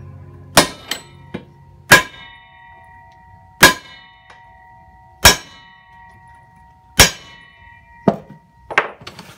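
Hammer blows on a socket, driving a 1310-series universal joint's bearing cap out of a 1970 Chevelle driveshaft yoke clamped in a steel bench vise. There are five hard metal-on-metal strikes about every one and a half seconds, each ringing briefly, with a few lighter knocks between them and near the end.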